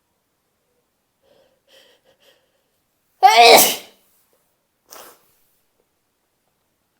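A woman's single loud sneeze about three seconds in, preceded by faint breathy build-up sounds and followed a second later by a short, quieter breath.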